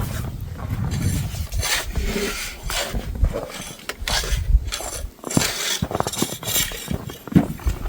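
Repeated scraping, crunching strokes in snow, roughly one a second and uneven, over a low rumble.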